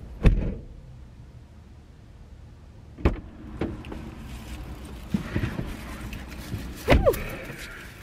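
Knocks and thumps of groceries being loaded into a car trunk. There is a sharp knock just after the start, smaller knocks around three and five seconds in, and another sharp knock about seven seconds in.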